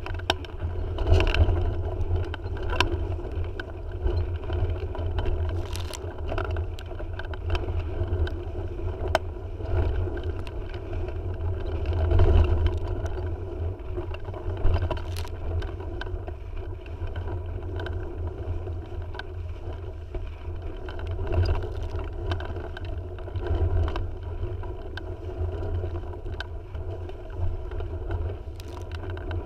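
Wind buffeting the microphone with a steady low rumble, and water rushing and slapping around a small sailing dinghy under way in gusty wind. Frequent sharp ticks and knocks run throughout, and the noise swells louder a few times.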